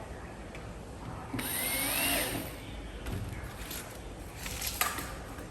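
A handheld power tool runs briefly for about a second and a half, its whine rising as it spins up and falling as it winds down. A few sharp knocks follow a little later.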